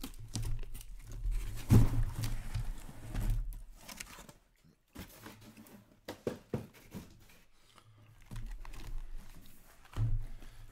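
Cardboard boxes of Upper Deck 2022-23 Series One hockey cards being lifted out of their shipping case and stacked on a table: scraping and shuffling of cardboard with knocks as boxes are set down, the loudest about two seconds in and again near the end. A low steady hum runs underneath.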